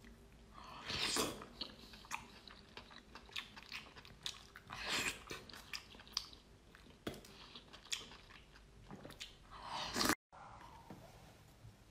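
Close-miked eating of sauced oysters: wet slurps, chewing and mouth clicks, with louder slurps about a second in, around five seconds and just before ten seconds.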